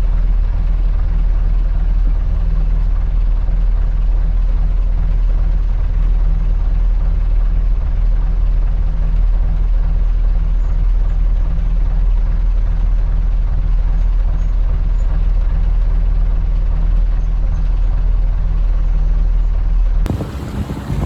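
Inboard engine of a wooden motor cruiser running steadily underway, a loud, even low drone. The sound cuts off abruptly near the end.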